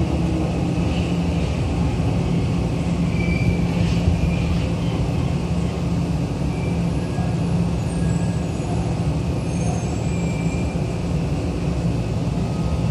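Running noise inside a Tokyo Metro Marunouchi Line 2000-series subway car: a steady rumble of wheels on rail in the tunnel with a constant low hum and a few faint high squeals.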